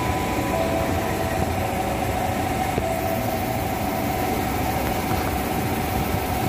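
KRL Commuter Line electric train at the platform, giving a steady hum and rumble from its running equipment with a few faint steady whining tones over it.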